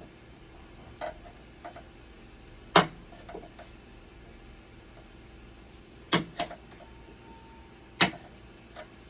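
Hand tools, pliers and a screwdriver, clicking and knocking against the dialysis machine's blood pump cabinet during a screw repair. There are about eight sharp, separate strokes, the loudest about three, six and eight seconds in, over a faint steady hum.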